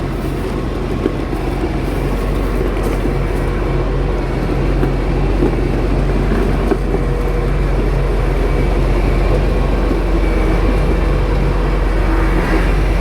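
Farm vehicle engine running steadily at a constant speed, a loud, even hum with no change in pitch.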